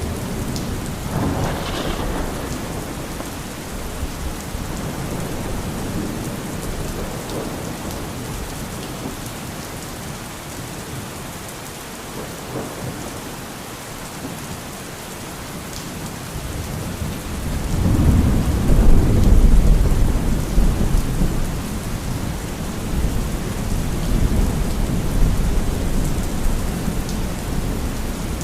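Thunderstorm: steady rain falling, with a short crack of thunder about two seconds in and a long, deep thunder rumble that swells past the halfway mark, peaks, and slowly dies away.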